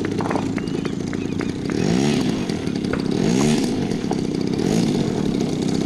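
Radio-controlled model airplane's engine and propeller running hard, its pitch swelling and falling back three times as the throttle is worked.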